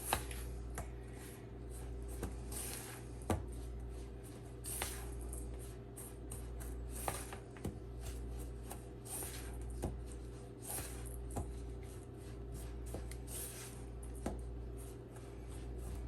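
Buttered pretzel crumbs being stirred and pressed in a mixing bowl: gritty scraping strokes about once a second, with occasional sharp clicks of the utensil against the bowl. A steady low hum runs underneath.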